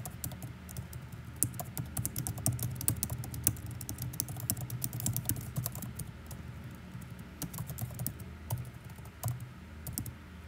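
Typing on a keyboard: a fast run of key clicks that thins out in the second half.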